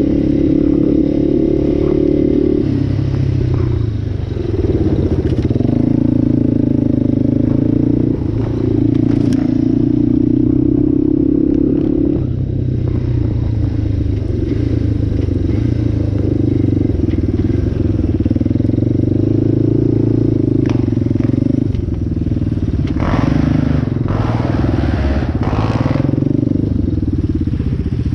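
Yamaha ATV's single-cylinder engine running on the move, its pitch rising and falling as the throttle opens and eases. A few seconds of scraping, clattering noise come in near the end.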